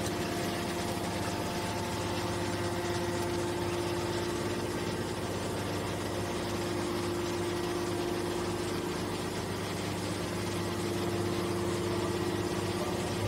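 Hydraulic metal scrap baler's pump unit running with a steady hum while its ram pushes a compacted bale of scrap metal out of the press chamber.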